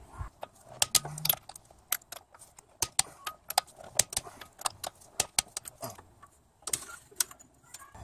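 Sharp metallic clicks from a ratcheting digital torque wrench and socket as wheel lug bolts are tightened down to 82 foot-pounds. The clicks come irregularly, in short runs.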